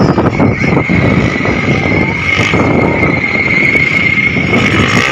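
Motocross dirt bike engines running loud and continuous, with a steady high whine held through most of it.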